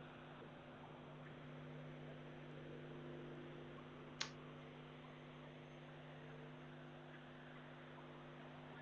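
Near silence: a steady low electrical hum with faint hiss, broken by one sharp click about four seconds in.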